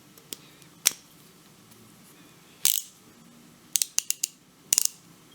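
Craftsman 72-tooth hand ratchet being worked in short, scattered spurts of clicks, a few single sharp clicks and then a quicker cluster near the end.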